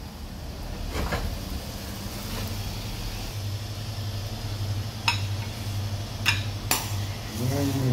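Metal slotted spoon clinking against a stainless steel frying pan while vegetables are served out, with three sharp clinks between about five and seven seconds in, over a steady low hum.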